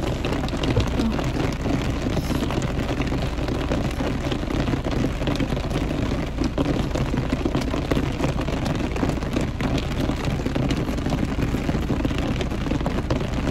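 Steady rain drumming on the roof and windows of a car, heard from inside the cabin.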